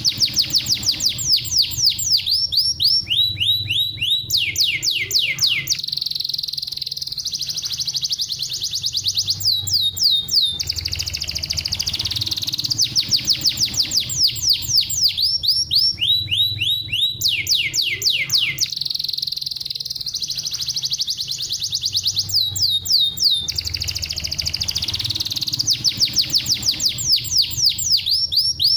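Domestic canary singing. It runs through rapid trills, each a fast run of high, falling whistled notes, and switches from one trill type to the next in phrases a few seconds long, with short breaks between them.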